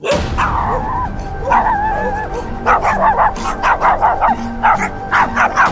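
Small dogs whining with a wavering pitch, then from about halfway yapping in quick runs of short, high barks, several a second, over background music.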